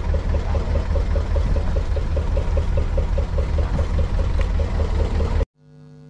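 A boat's engine idling steadily with a quick, even pulse. It cuts off suddenly about five and a half seconds in, and a faint held music note starts.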